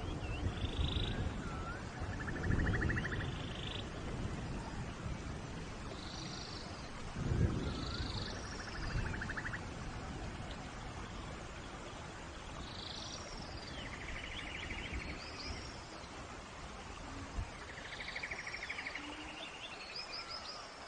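Forest ambience: birds calling again and again in short pulsed trills and high sweeping chirps, over a steady hiss with a few low rumbling gusts.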